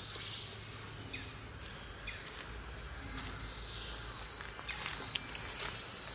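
Insects droning in the trees: one steady, high-pitched buzz that holds without a break.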